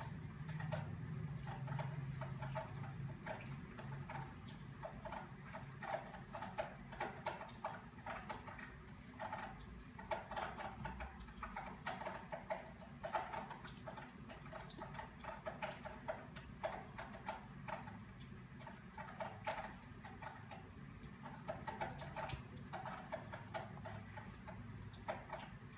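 Crochet hook working stitches in yarn: faint, irregular runs of small clicks and ticks.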